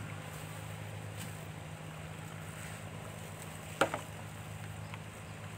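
Banana fritters deep-frying in a wok of hot oil, the oil sizzling steadily over a steady low hum, with one sharp pop about four seconds in.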